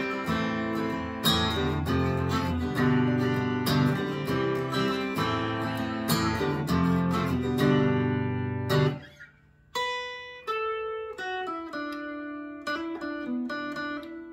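Fender Acoustasonic Player Telecaster played through a small amp on its magnetic pickup alone, giving its fully electric sound. Strummed chords for about nine seconds, then, after a brief pause, single notes picked one after another.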